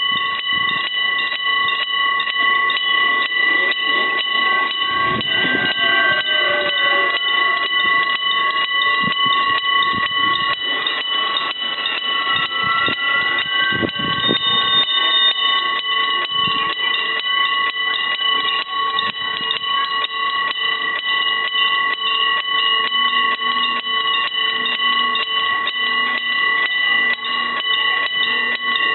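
Electric bell of a railway level-crossing warning signal ringing continuously, a rapid, even, metallic trill. Low rumbling noises come and go partway through.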